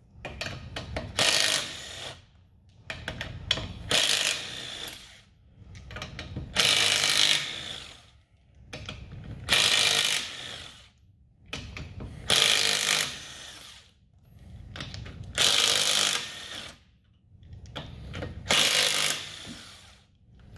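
Harbor Freight Earthquake 3/8-inch impact wrench with a 22 mm socket hammering on van lug nuts torqued to 140 foot-pounds, one nut after another. About seven bursts of a second or two each, with short pauses between as the socket moves to the next nut.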